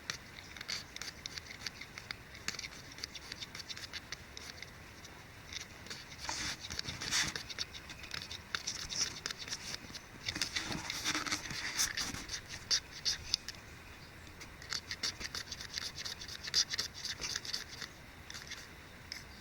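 Kindling and wood being handled and worked by hand: a stream of small clicks and scratching, with two louder, denser stretches of scraping about six and ten seconds in.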